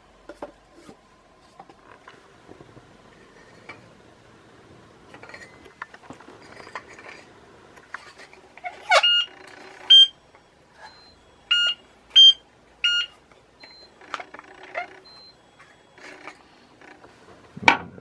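Objects being handled on a workbench: light clicks and knocks, with five short ringing pings between about nine and thirteen seconds in, and a louder knock near the end.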